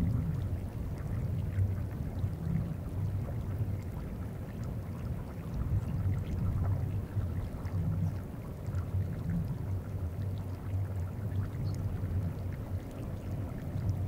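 Deep, low rumbling and bumping of the Greenland ice sheet's glacier ice shifting as it moves, picked up through geophones in the ice. It swells and fades unevenly, with faint trickling and scattered small ticks from the melting surface above it.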